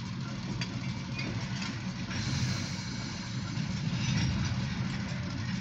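Steady low engine hum at idle, heard from inside a car's cabin, with a faint hiss over it.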